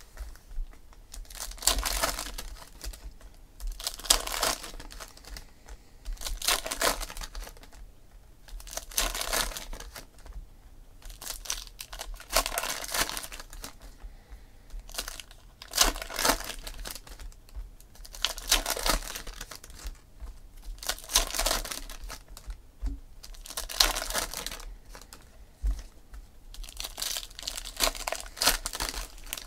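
Trading-card pack wrappers being torn open and crinkled by hand, a burst of crinkling every two to three seconds.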